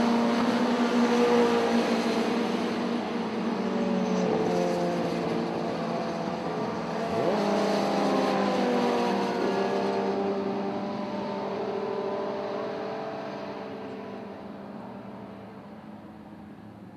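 A pack of shortcar racing cars running hard, several engine notes overlapping and rising and falling in pitch as they accelerate and lift. The sound grows fainter toward the end as the field moves away.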